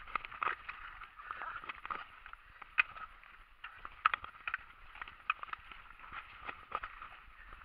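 Mountain bike riding over rough, rocky ground: irregular clicks, knocks and rattles from the bike jolting over the stones, over a steady muffled rush.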